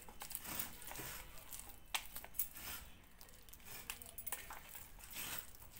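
A hand kneading a soft mash of banana, coconut and batasha in a brass plate: fingers squishing and scraping on the metal, with scattered light clinks, two sharper ones about two seconds in.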